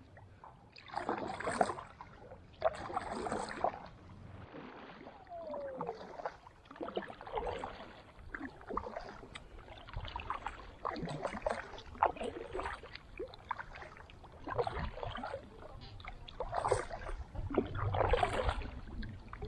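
Kayak paddle dipping and pulling through the river water in a steady run of strokes, a splashy swish about every second or so.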